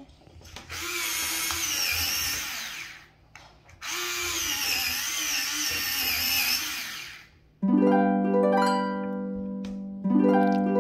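Small electric pencil sharpener running twice as a coloured pencil is pushed in, its motor whining over the grinding of the blades, each run about three seconds long. Then a louder plucked, harp-like musical chime rings out twice, about two and a half seconds apart.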